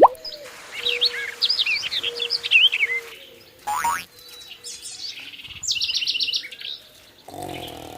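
Birds singing: a run of quick, varied chirps for the first few seconds, then a fast trill of repeated notes in the middle, over a faint steady hum.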